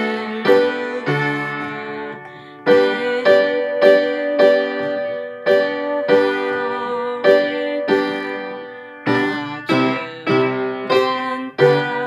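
Upright piano playing a hymn in full chords at a slow, halting pace, with a short break in the playing about two seconds in.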